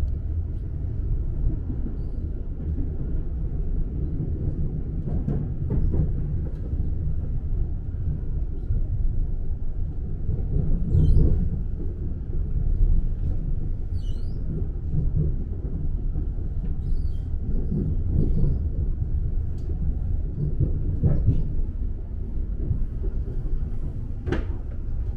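Steady low rumble of a TfL Rail (Elizabeth line) train running, heard from inside the carriage, with a few faint clicks scattered through it.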